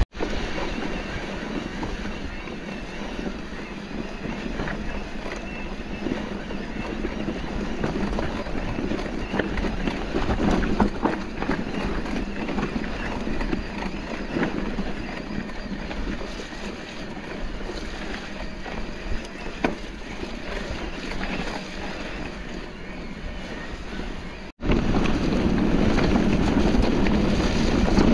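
Riding noise from a mountain bike on a trail: wind on the microphone, with tyre rumble and many small clicks and rattles. The sound cuts out for an instant near the end and comes back louder.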